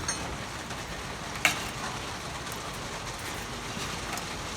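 Hand tools working on the patio heater's cover lock nuts: one sharp metallic click about a second and a half in and a few faint ticks later, over a steady background hiss.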